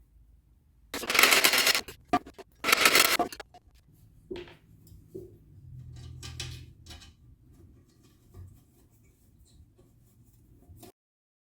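Two loud rasping bursts of metalwork on mild-steel helmet plates, each under a second and about a second and a half apart, followed by light clinks and knocks of the metal parts being handled. The sound cuts off abruptly near the end.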